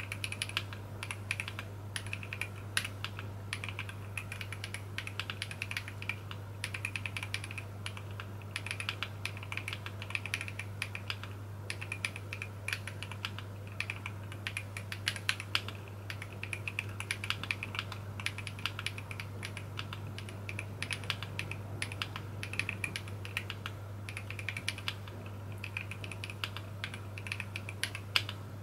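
Typing on a Voice65 mechanical keyboard with lubed Glorious Panda tactile switches, a polycarbonate plate and 1.4 mm dye-sub PBT Cherry-profile keycaps: a fast, continuous patter of keystrokes with occasional louder strokes.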